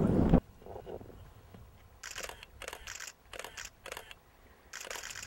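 Digital SLR camera shutter firing in bursts: short, sharp clicks about three to four a second in bunches, starting about two seconds in.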